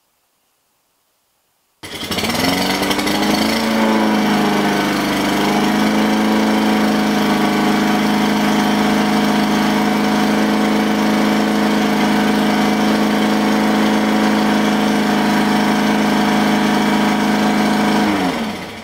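A loud motor or small engine starts suddenly about two seconds in. Its pitch wavers for a couple of seconds, then it runs at a steady pitch until it cuts off near the end.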